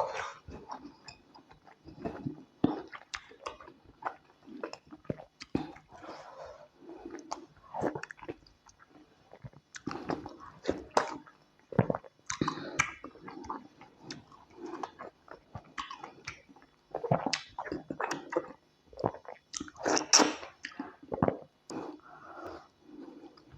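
Close-up mouth sounds of eating tilapia pepper soup and starch: chewing and biting in a quick, irregular run of short clicks and smacks.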